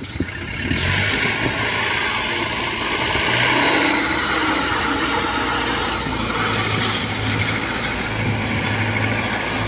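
Small diesel engine of a tracked rice-transport cart running as the cart crawls across the paddy stubble, with a steady low hum and a dense clatter. It gets louder about a second in as the cart comes close.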